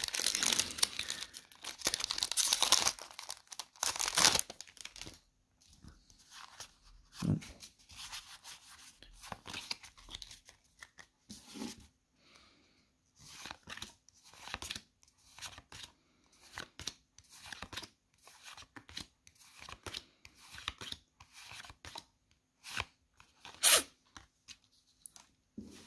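Foil Pokémon booster pack wrapper torn and crinkled for the first few seconds. Then come short, soft rustles and clicks as the trading cards are slid and flicked against each other, with one sharper crackle near the end.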